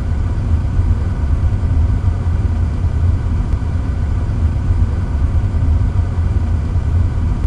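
A steady, loud low rumble with no clear pitch and no separate events.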